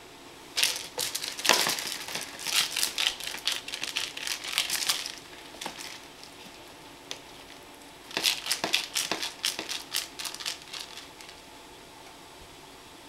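Cat toy of furry mice on coiled metal springs clattering and rustling rapidly as a cat grabs, bats and bites at it, in two spells of a few seconds each.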